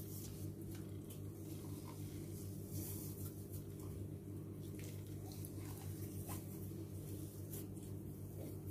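Thick blue slime pulled and torn out of a plastic tub by hand, giving soft sticky squishes and scattered faint crackling clicks, over a steady low hum.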